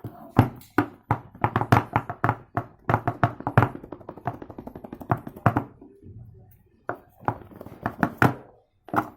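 A quick run of sharp, hard knocks for about six seconds, several a second, then a short pause and a few more spaced knocks near the end.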